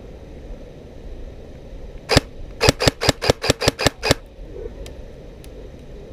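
Airsoft gun firing: one shot about two seconds in, then a quick string of about nine sharp shots in a second and a half.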